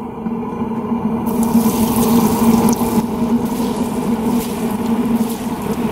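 Battered speckled trout fillets dropped into hot oil in the baskets of a large commercial deep fryer, sizzling and bubbling hard. The hiss swells about a second in as the fish hit the grease, over a steady low hum.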